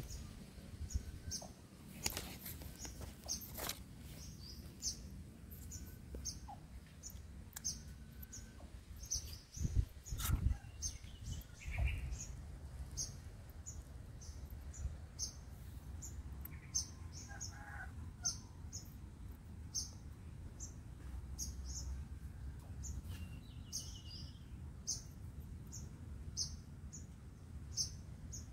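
A small bird repeating a short, high chirp over and over at a steady pace, over a low outdoor rumble. A few sharp knocks stand out about two, four and ten seconds in.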